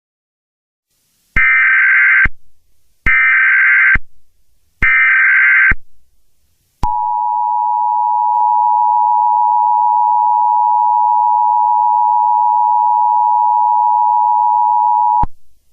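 Emergency Alert System signal: three bursts of the SAME digital header, each just under a second long with short gaps between them, then the two-tone EAS attention signal (853 and 960 Hz together) held steady for about eight seconds before it cuts off.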